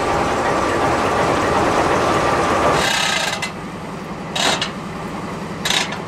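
GE B32-8 diesel locomotive's 12-cylinder prime mover running at idle close by, a dense steady rumble that falls to a quieter, evenly pulsing low hum about three seconds in. A few brief hisses cut through in the second half.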